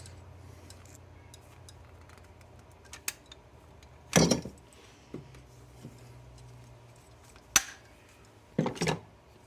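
A few sharp clicks and clinks of small metal parts and hand tools being worked on a bench, over a low steady hum. The loudest clicks come about four seconds in, again near eight seconds, and as a quick pair near the end.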